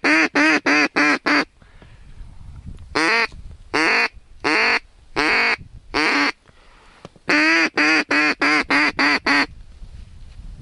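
Duck call blown close by, giving loud quacks: a quick run of quacks, then five longer drawn-out quacks, then another quick run of about eight. It is calling circling ducks in to the decoys.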